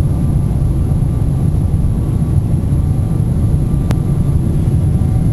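Steady low rumble of an airliner cabin on approach to landing, engine and airflow noise heard from a window seat with the flaps extended. A single sharp click about four seconds in.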